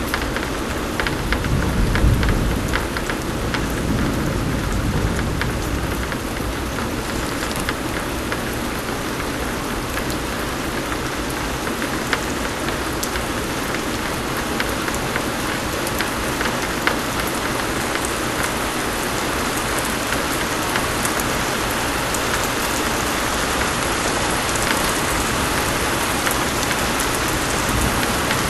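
Rain falling steadily, with a low rumble of thunder swelling and fading a couple of seconds in.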